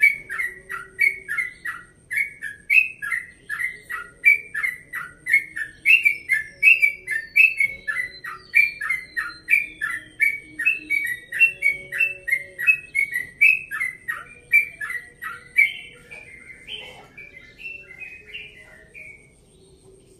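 Caged yellow-vented bulbul (trucukan) singing a fast, continuous run of repeated falling notes, about two a second. The song weakens about three-quarters of the way through and stops near the end.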